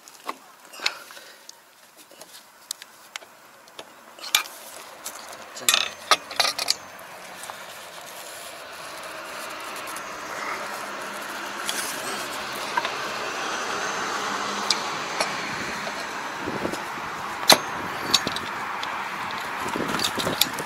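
Hand tools clicking and clinking against the cast metal gearbox casing of a Kobashi rotary tiller as a stuck fastener is worked at, in a few sharp clusters. From about the middle on, a steady rushing noise swells up and holds underneath.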